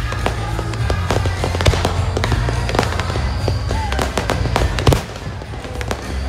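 Aerial fireworks shells bursting in quick succession, a dense run of bangs and crackles over a steady low rumble. The loudest bang comes about five seconds in, and the noise eases briefly after it.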